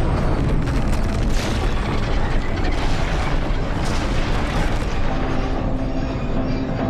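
Loud, heavy rumbling and crashing noise mixed with a dark orchestral film score; held notes of the score come through more clearly near the end.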